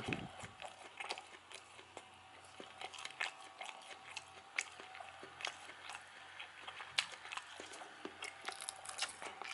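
A person chewing a mouthful of liver in sour cream with mashed potatoes, close to the microphone, with many short mouth clicks at irregular intervals.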